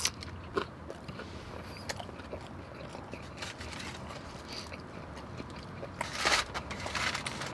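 Close-up mouth sounds of a person biting and chewing birria tacos: scattered wet clicks and smacks, with a burst of louder crackly bites about six seconds in, over a steady low hum.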